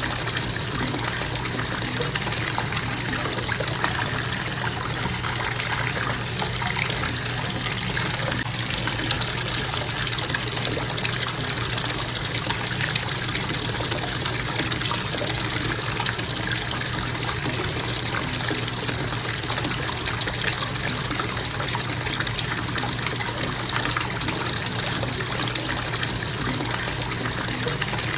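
Bathtub faucet running at a constant flow, water splashing into the tub in a steady, unbroken rush.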